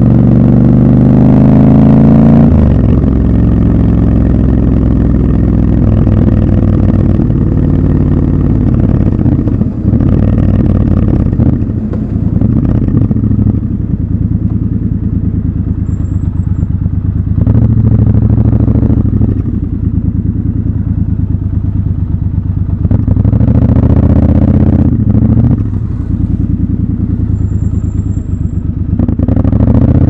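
Triumph Scrambler 1200 XC's 1200 cc parallel-twin engine rising in pitch under acceleration for the first couple of seconds, then shifting up. It runs at low revs with short blips of throttle as the bike creeps through queued traffic.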